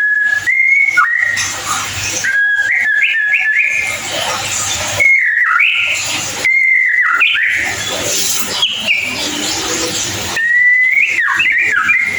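White-rumped shama singing: clear whistled phrases of a few seconds each, with quick upward and downward slurs, separated by short pauses.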